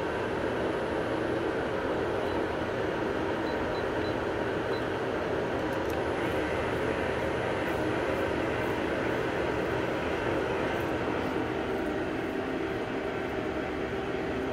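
Steady mechanical hum and whir of a powered-up Okuma Genos L250E-e CNC lathe running.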